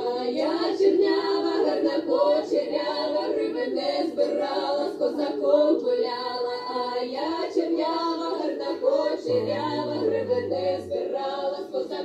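A small group of women singing a folk song a cappella in close harmony, several voices together with no instruments. A brief low note hums under them about nine seconds in.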